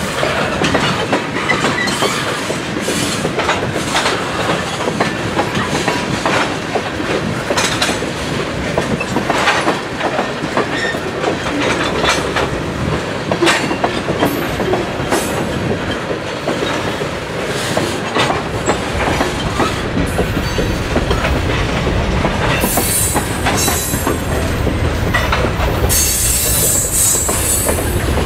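Freight train's tank cars rolling past on jointed rail: steel wheels clicking and rumbling on the track. The low rumble grows about two-thirds of the way in, and a harsh high hiss comes in near the end.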